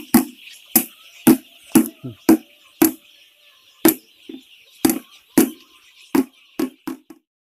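Sharp percussion hits, about two a second, the beat of an added music track, over the steady peeping of a large flock of week-old chicks. Everything cuts off abruptly near the end.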